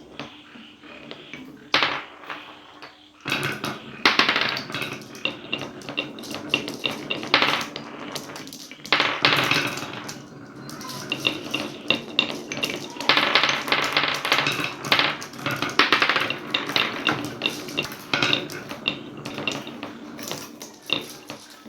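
Marbles rolling and clattering down a wooden marble-run track, with many quick knocks and clicks and a light ringing as they strike the track and each other. The clatter comes in bunches with short lulls.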